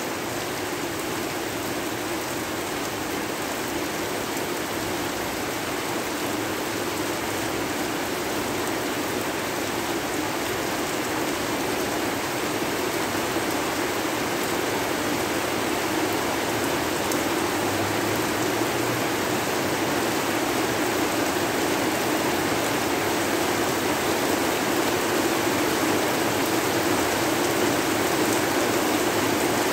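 Steady, continuous rainfall, an even hiss of rain with no breaks, growing slightly louder over the stretch.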